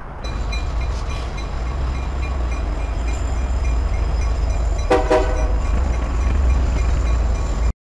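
Union Pacific diesel locomotives passing close by, their engines making a heavy, steady low rumble, with a short horn blast about five seconds in.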